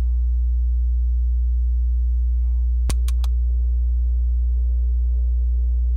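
A steady low hum with a few fixed higher tones above it, and three quick sharp clicks close together about halfway through.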